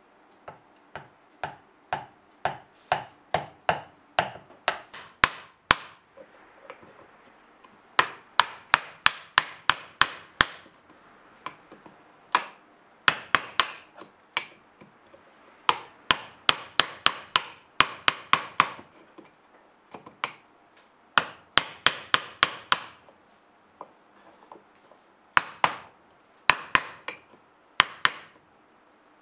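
Japanese chisel struck by a hammer, chopping out the blade mortise of a wooden Japanese plane block (kanna dai). Crisp taps in quick runs of about five a second, broken by short pauses.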